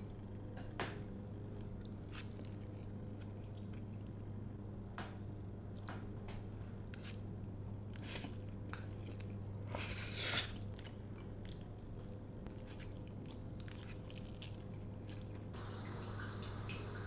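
A person chewing and eating a mouthful of Indomie Mi Goreng instant fried noodles, with scattered short clicks and one louder noisy burst about ten seconds in, over a steady low hum.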